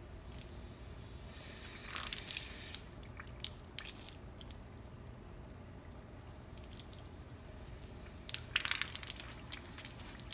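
Water spurting in short sputtering bursts from a hose fitting on a deionizing filter tank and splashing onto concrete, with light handling clicks from the fittings. The louder sputtering comes about eight and a half seconds in, as the flow is opened.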